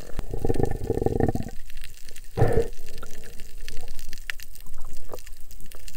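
Underwater sound picked up by a diving camera: a muffled rush and bubbling of water for the first second and a half, another short gush about two and a half seconds in, then quieter water with scattered faint clicks.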